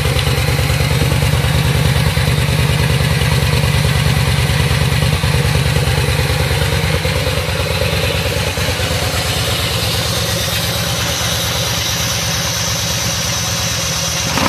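Yamaha V Star 950's air-cooled V-twin engine idling steadily through its chrome exhaust, an even, low pulsing beat.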